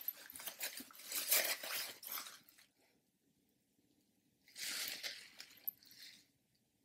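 Clear plastic wrapping crinkling and rustling as a cup is pulled out of it, in two stretches with a silent gap of about a second and a half between them.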